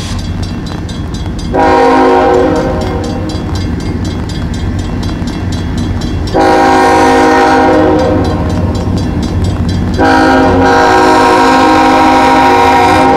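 Diesel freight locomotive's multi-note air horn sounding for a grade crossing: three long blasts with only short breaks between them, starting about a second and a half, six and a half and ten seconds in, the last still going at the end. Under it runs the steady low rumble of the approaching locomotive.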